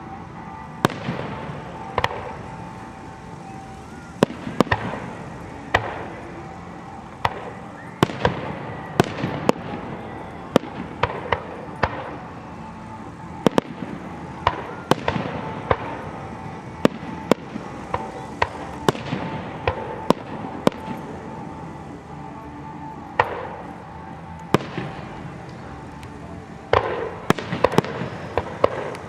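Aerial fireworks show: a continuous run of sharp bangs at uneven intervals, sometimes several in a second, some followed by crackling. Music plays underneath.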